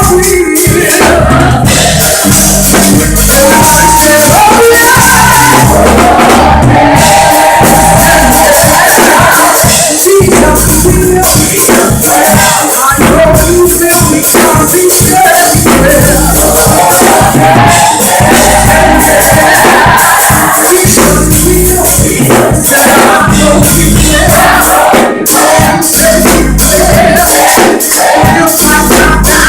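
Live gospel music: a group of singers in full voice over band accompaniment with bass and percussion.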